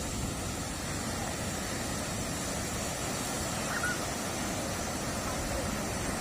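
Steady rush of strong wind on the microphone mixed with ocean surf.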